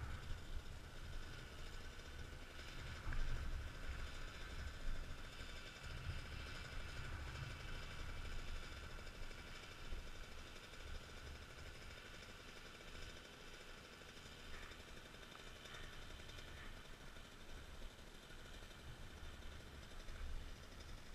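Dirt bike engine idling, faint and muffled, under a low uneven rumble.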